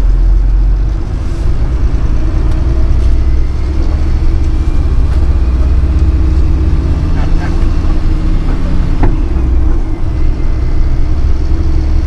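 MAN CLA truck's diesel engine pulling away under load, heard from inside the cab as a steady low drone.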